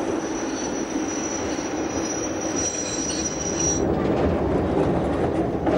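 Bernese Oberland Railway train running slowly with a thin, high, steady squeal that cuts off about four seconds in, over the rumble of the running gear.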